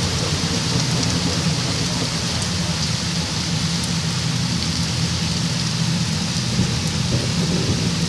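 Rain pouring steadily: an even hiss, with a low steady hum underneath.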